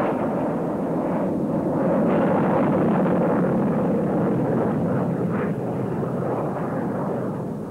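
Jet fighter's engine noise as it flies past on reheat (afterburner): a steady rushing rumble with some crackle, swelling slightly about two seconds in and fading near the end.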